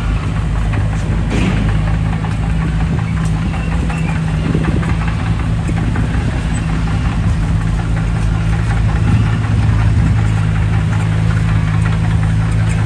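D20P bulldozer's diesel engine running steadily, with scattered light clicks and clanks over it.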